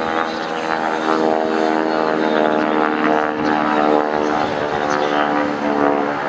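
North American SNJ/T-6 Texan's nine-cylinder Pratt & Whitney R-1340 Wasp radial engine and propeller running steadily in flight, a continuous engine note whose pitch shifts a little as the plane manoeuvres.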